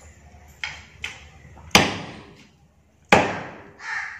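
Meat cleaver chopping cow trotters on a wooden log block: two light taps, then two heavy chops through bone about a second and a half apart, each ringing briefly.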